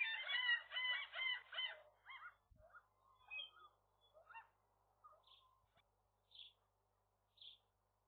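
Gulls calling in a rapid run of high, harsh, pitched notes that fade out about two seconds in, followed by a few scattered calls and a soft thump. Near the end come three short high chirps from a small bird, about one a second.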